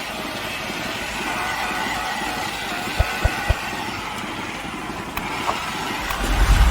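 Machinery running steadily, with three quick low thumps about three seconds in and a low rumble building near the end.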